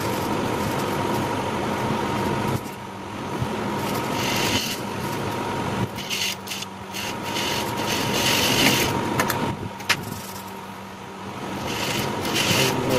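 JUKI industrial sewing machine stitching, its motor humming steadily under a noisier stitching sound that comes in spurts. The stitching drops away briefly about three seconds in and again around ten seconds in, with a few sharp clicks just before the second drop.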